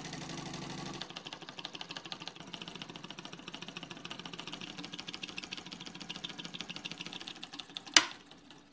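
Homemade solenoid engine running: the electromagnet pulls its iron plunger in on each turn of the crank and wooden flywheel, making a rapid, even mechanical clatter. Near the end there is one sharp, loud click, after which the clatter quickly dies away.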